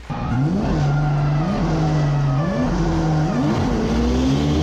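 Car engine heard from inside the cabin, held at high revs and kicked up sharply about once a second, typical of clutch kicks while drifting.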